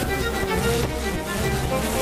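Music with sustained notes over a steady low bass.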